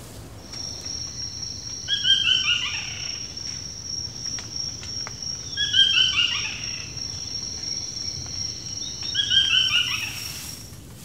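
Forest ambience: a steady, high-pitched insect drone, with a bird singing three times, each song a quick run of falling notes, about three and a half seconds apart.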